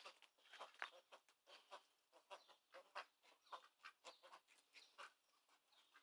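Runner ducks quacking softly in short, quiet calls, several a second, faint throughout.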